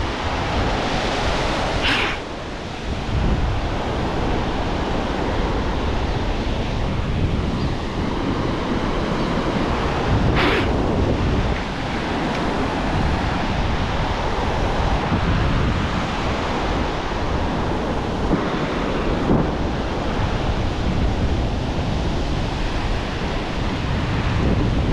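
Ocean surf breaking and washing up over a sandy beach, with wind buffeting the microphone. Two short hissing bursts stand out, about two seconds in and again about ten seconds in.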